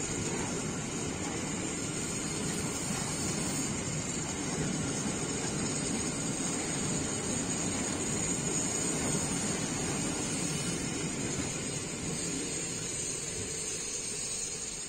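Freight train of car-carrier flat wagons loaded with vans rolling past at steady speed: a continuous rumble of wheels on rail with a steady high hiss above it. It eases off slightly near the end as the last wagon goes by.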